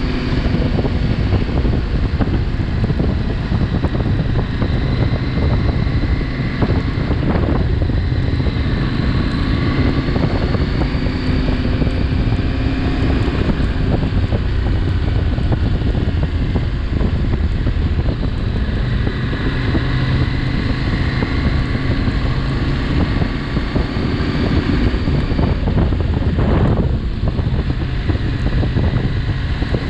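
KTM 790 Adventure R's parallel-twin engine running while riding, under heavy wind noise on the microphone; the engine pitch rises and falls with the throttle.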